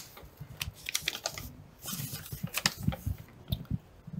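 Paper being handled on a desk: soft, irregular clicks and rustles.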